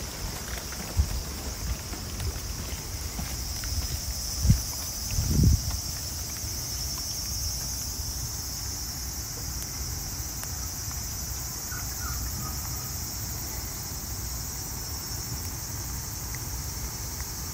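Steady chorus of cicadas, a continuous high-pitched drone, over a low rumble. Two brief low thuds come about four and a half and five and a half seconds in.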